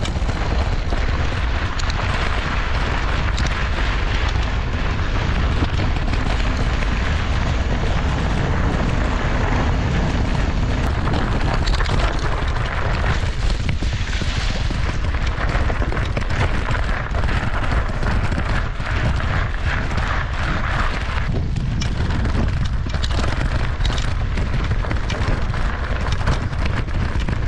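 Steady wind rumble buffeting a GoPro action camera's microphone while a mountain bike is ridden, with the hiss and small rattles of tyres rolling over the trail underneath.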